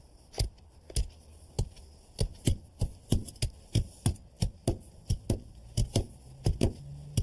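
Steel hand tamper pounding down a freshly spread layer of 3/4-inch stone and stone dust, compacting the fire-pit base. A rapid run of sharp thuds, about two to three a second, quickening a little in the middle.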